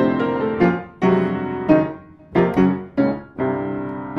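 Solo piano music: chords struck one after another and left to ring, with a brief lull about two seconds in.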